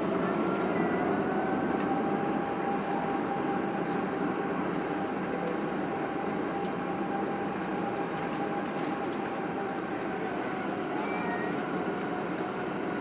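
Boeing 737 turbofan engines at taxi power, heard inside the cabin as a steady hum with a faint whine that rises slightly about a second in and then holds.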